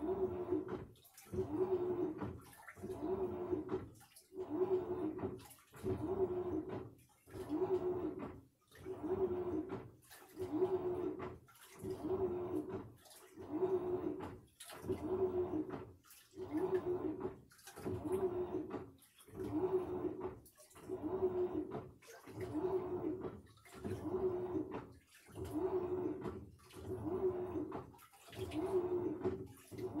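Samsung washing machine agitating its load: a motor whine and a water swish repeat in a regular rhythm of about one stroke a second.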